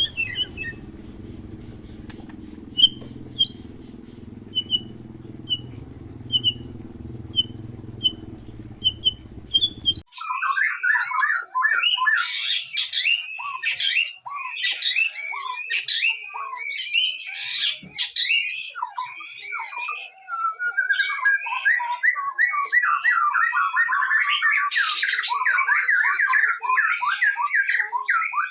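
White-rumped shama (murai batu) giving short chirps repeated about once every 0.7 s over a low hum. About ten seconds in, the hum cuts off and loud, varied song takes over, turning into a fast, continuous chattering trill in the second half.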